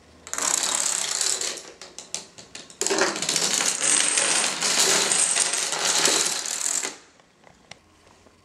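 A long chain of dominoes toppling on a hardwood floor: a fast rattling clatter, thinning to scattered clicks about two seconds in, then a second dense run of clatter for about four seconds that stops sharply near the end.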